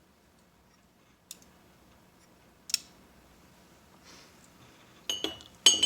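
Small sharp clicks of a compressor pressure switch's metal and plastic parts being handled and worked by hand: single clicks about a second in and near three seconds, then a quick cluster of clicks with a short metallic ring near the end.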